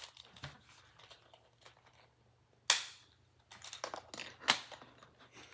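Plastic pieces of a cheap Rubik's cube clicking as the cube is pulled apart, with one sharp snap about two and a half seconds in and another about two seconds later.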